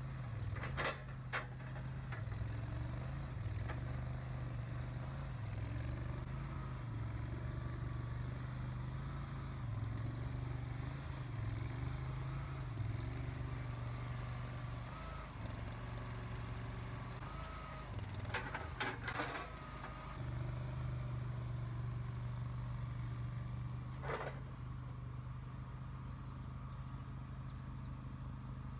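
Boxer 427 compact skid steer's engine running steadily, its pitch dipping and rising as the machine works, with a wavering higher whine. A few sharp metallic clanks: one about a second in, several about two-thirds of the way through, and one more shortly after.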